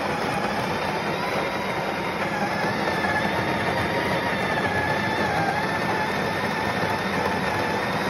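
Breville Barista Express Impress espresso machine's built-in burr grinder running steadily, grinding whole coffee beans into the portafilter for a shot. A steady grinding noise with a faintly wavering whine on top.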